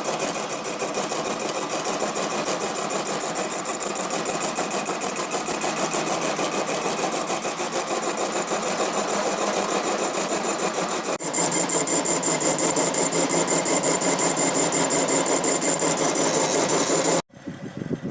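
Hex-bolt trimming machine running with a fast, even clatter and a high whine. The sound cuts off and resumes with a slightly different tone about 11 seconds in, then stops abruptly near the end.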